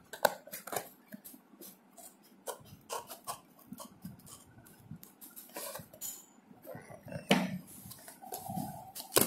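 Scissors cutting open a plastic-wrapped cardboard parcel, then hands handling it: irregular snips, crinkles and clicks, with louder clicks about seven seconds in and near the end.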